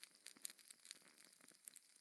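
Fireplace fire crackling quietly, with many irregular small pops and snaps over a faint hiss.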